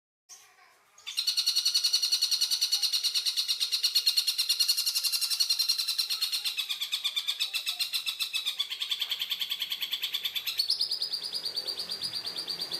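Tengkek buto kingfisher giving a long, rapid rattling call, its notes coming many times a second. Starts about a second in, wavers lower in the middle and changes to a steadier, higher note near the end.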